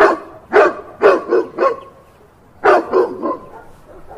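A dog barking repeatedly: a run of about five short barks, a pause of about a second, then three more.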